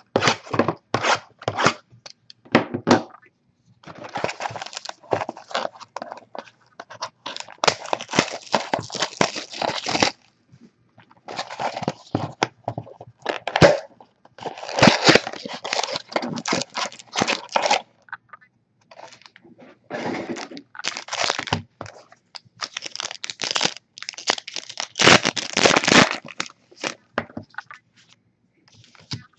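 A cardboard trading-card box being torn and pried open by hand, then the wrapped card packs inside crinkling and crackling as they are pulled out and handled. The sound comes in several runs of sharp tearing and crackling a few seconds long, with short pauses between.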